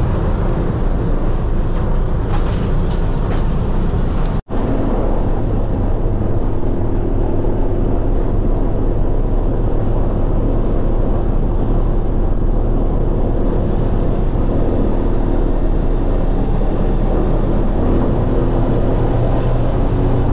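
The C-47's twin Pratt & Whitney R-1830 radial piston engines run with a loud, steady drone, heard from inside the cabin during the takeoff run. The sound cuts out for a split second about four and a half seconds in, then the drone carries on unbroken.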